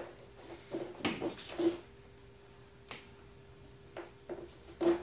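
Cardboard box parts being handled: a scatter of short taps, scrapes and knocks, the loudest just before the end, over a faint steady hum.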